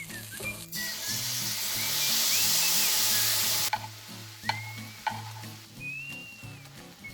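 Food frying in a hot pan: a loud sizzle that starts about a second in and cuts off abruptly about halfway through, over light background music with a whistled melody. Two short clicks follow.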